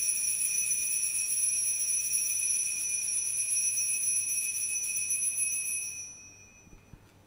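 Altar bells shaken in one continuous ring as the consecrated host is elevated at Mass, marking the consecration. The ringing stops about six seconds in and fades away.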